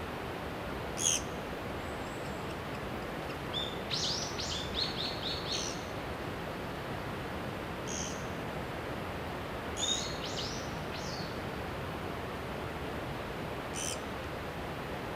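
Wild birds calling: short sharp high calls every few seconds, and a quick run of rapidly repeated high notes about four seconds in and again about ten seconds in, over a steady background hiss.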